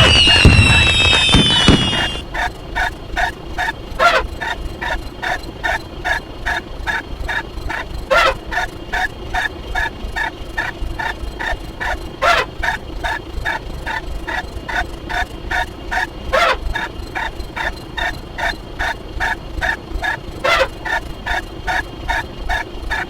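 Firework sound effect of gliding whistles and bangs ending about two seconds in, then a looped sound effect of short, rapid pitched pulses, about three a second, with a sharper accent about every four seconds.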